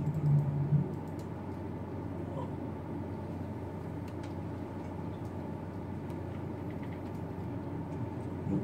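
Steady room hum with a few faint, scattered clicks from a computer mouse and keyboard being worked.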